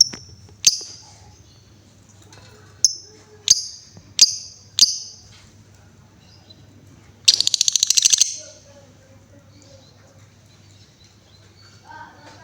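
Female lovebird giving sharp, high chirps, six in the first five seconds, then a rapid pulsed chatter lasting about a second near the middle.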